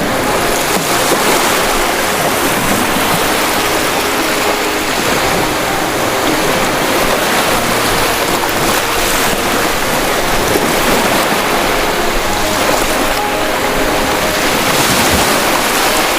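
Ocean surf: waves washing in as a steady rush of noise that swells slightly near the end.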